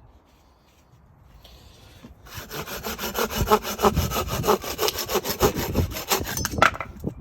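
Mossy Oak folding pruning saw cutting through wood in quick, even back-and-forth strokes. The strokes start about two seconds in and stop near the end.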